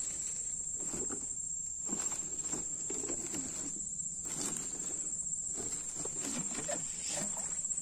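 A steady, high-pitched insect trill from a swamp chorus (crickets), with irregular rustling and crackling as palm fronds and grass are pushed aside in shallow water.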